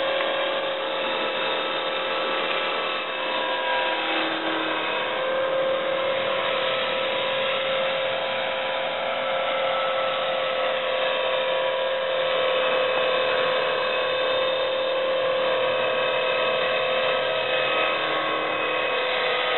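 Electric 450-size RC helicopter (Exceed Blue Ray with a scale MD530 fuselage) in flight: a steady high motor and rotor whine with the whir of the blades, its pitch rising a little about five seconds in.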